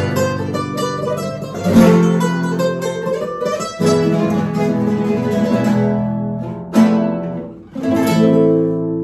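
Instrumental acoustic guitar music: plucked and strummed chords, with a new chord struck every few seconds.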